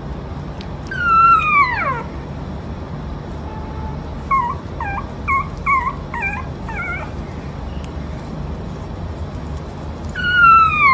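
A dog whining: a long call falling in pitch about a second in, a run of short high cries in the middle, and another long falling call near the end.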